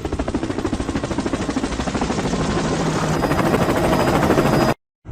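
Loud, rapid, steady mechanical throbbing, like a helicopter rotor or small motor, cut off abruptly near the end.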